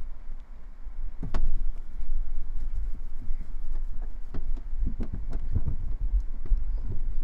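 Damp cloth wiping and rubbing against the inside walls of a cabinet-type UV sterilizer, with scattered short knocks and scrapes against the cabinet, over a steady low rumble.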